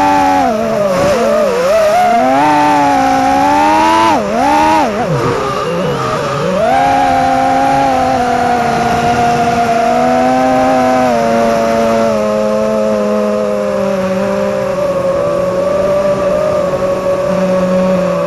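FPV quadcopter's motors and propellers whining. The pitch dips and climbs sharply with throttle changes for the first several seconds, then holds a nearly steady tone that sinks slowly.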